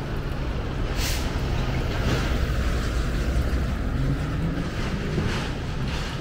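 City street traffic: a steady low rumble of passing vehicles with a few short hissing sounds, and one engine rising in pitch about four to five seconds in.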